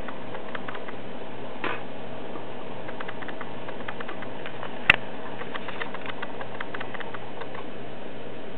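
Plastic mouse exercise ball rolling on a hard floor: a scattered run of small clicks and ticks, with one sharp knock about five seconds in, over steady background noise.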